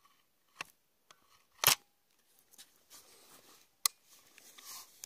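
Hatsan Striker Edge break-barrel air rifle being handled after loading a pellet: a small click, then a loud metallic clack with a brief ring as the barrel is snapped shut, and another sharp click a couple of seconds later, with light rustling of hands on the gun between.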